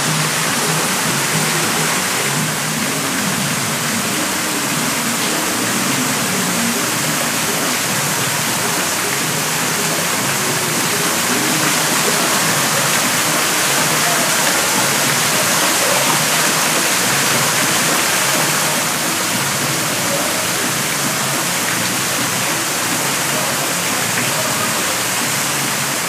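Steady rush of falling water from a decorative water feature, with a faint low murmur underneath.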